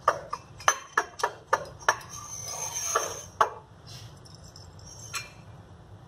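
Lab glassware clinking and tapping on a bench: a quick run of light clicks in the first two seconds, a short hiss around the middle, then a few scattered taps.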